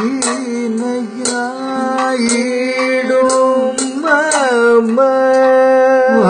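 Kathakali vocal music: a singer holds long drawn-out syllables with gliding ornaments over a steady drone, while small hand cymbals (ilathalam) strike about once a second to keep the tala.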